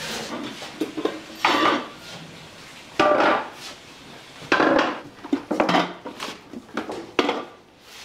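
Metal-legged bar stools being lifted off a wooden counter and set down on the floor, with a series of clanks and knocks every second or so, each ringing briefly.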